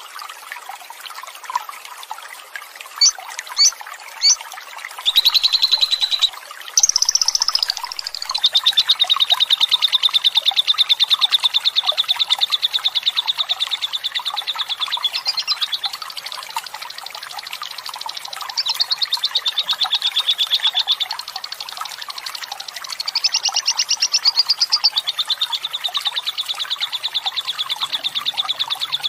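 Fighter lovebird giving its long, fast chattering trill (ngekek panjang), high-pitched and evenly pulsed, in long runs with short breaks. A few short sharp chirps come just before the first run. A steady trickle of running water goes on underneath.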